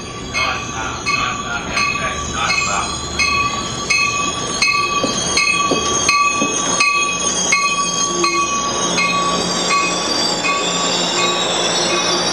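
Amtrak Pacific Surfliner passenger train pulling into the station cab car first, with a bell ringing about twice a second. The rumble of the bi-level cars' wheels builds from about four seconds in as the cars roll past, and a high, steady wheel squeal runs through the second half.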